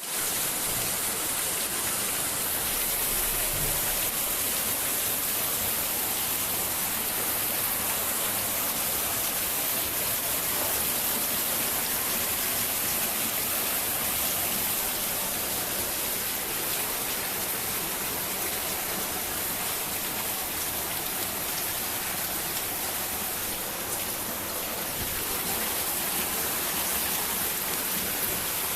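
Heavy rain falling as a steady, even hiss that keeps an unchanging level.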